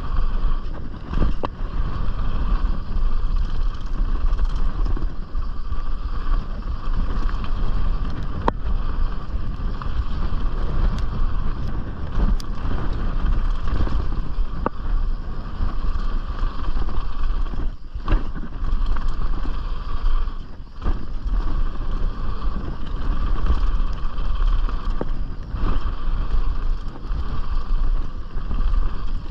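Wind rushing over a chest-mounted action camera's microphone while a Canyon Strive enduro mountain bike runs fast down a dirt trail, with tyre noise and occasional sharp knocks and rattles from the bike.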